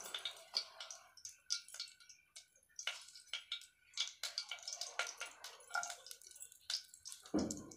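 Faint clicks and scrapes of a small spoon against a plastic jar as salt is scooped out, with a louder brief knock near the end.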